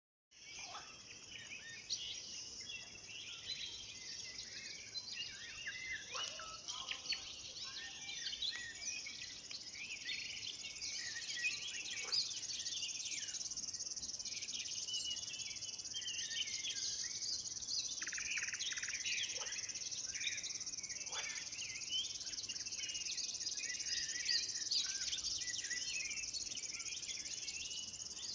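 Several songbirds singing at once at night, a dense mix of chirps, whistles and trills, over a steady high-pitched insect buzz.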